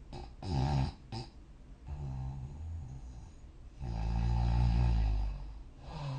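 A person snoring in sleep, one breath after another. There is a short snore near the start, a softer one around two seconds in, and a long, loud snore about four seconds in; another begins near the end.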